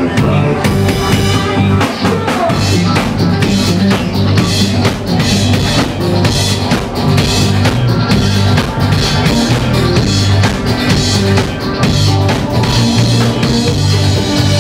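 Psychedelic electronic dance music with a steady, driving drum beat and a heavy bass line.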